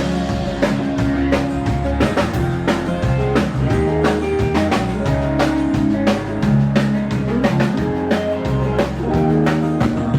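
Band playing an instrumental break in a country-rock song: drum kit keeping a steady beat under electric guitar and bass, with no singing.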